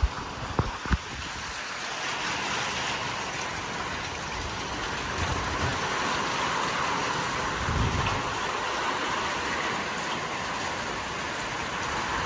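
Storm winds and driving rain rushing steadily, growing a little louder about two seconds in. A few sharp knocks in the first second, and a deep gust about eight seconds in.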